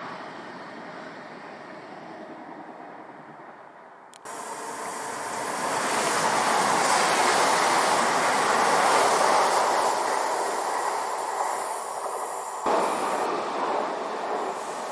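A train passing on the line: a steady rush of wheels on rails that swells to its loudest in the middle and then eases. The sound jumps abruptly about four seconds in and again near the end.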